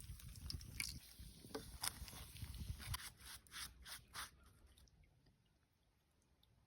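A scattered series of light clicks and knocks over a low rumble, dying away to near silence after about four seconds.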